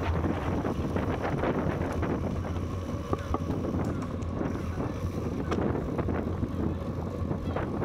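Wind rushing over the microphone of a bicycle in motion, with a steady low rumble from the ride and a few light clicks and rattles scattered through.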